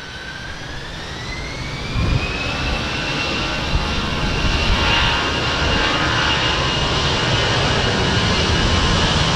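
Airbus A320-214's twin CFM56-5B turbofan engines spooling up for takeoff: a whine rises in pitch over the first two seconds or so, then holds steady as the jet noise grows louder and settles at takeoff thrust.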